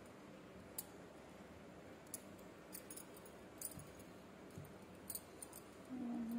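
Faint, irregular light clinks of glass bangles on a wrist as a hand presses a soft sponge cake, with a short low hum near the end.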